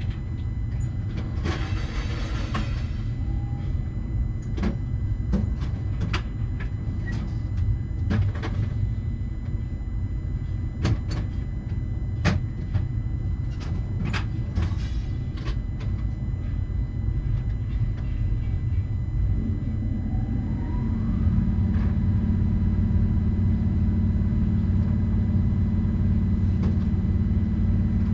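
Skid steer engine running steadily, with scattered sharp clicks and knocks over it. About 20 s in, a short rising tone settles into a louder, steady hum as the machine's engine or hydraulic pumps take on more speed or load.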